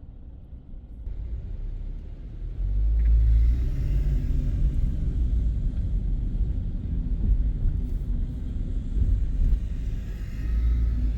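Car driving on city streets: a low rumble of engine and road noise heard from inside the car. It grows louder about two and a half seconds in, as the car picks up speed.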